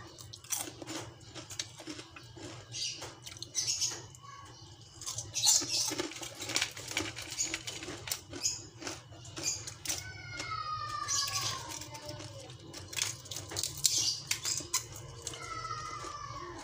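Crispy fried danggit (dried rabbitfish) crunching and crackling in many short, sharp bursts as the pieces are handled and bitten. Around ten and fifteen seconds in there are two drawn-out cries that fall in pitch.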